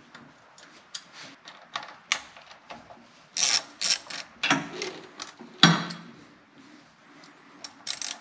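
Small screwdriver turning a screw to fasten a ground wire terminal on a carburetor's electronic choke: a run of short metallic clicks and scraping strokes, loudest from about three to six seconds in.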